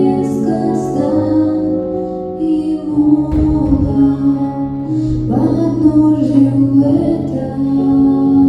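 Slow, gentle music with long held chords that change every second or two.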